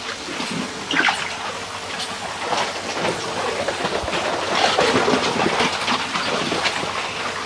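Arrastra mill running: heavy drag stones scraping and grinding through wet gold ore, with chains clanking in an irregular clatter.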